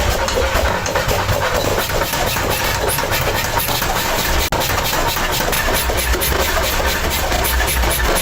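Workshop machinery running steadily with a low hum and a fast, continuous rattling clatter. It briefly cuts out about halfway through.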